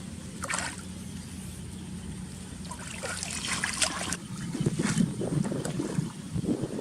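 Water splashing and sloshing in irregular bursts, growing busier from about three seconds in, over a steady low hum that fades about four seconds in.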